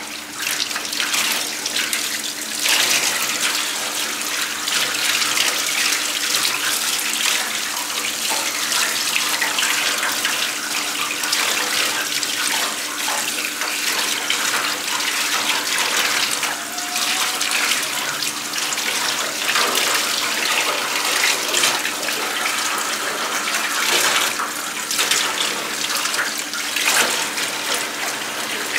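Tap water running into a stainless-steel sink, splashing over a gutted salmon and the hands rinsing it.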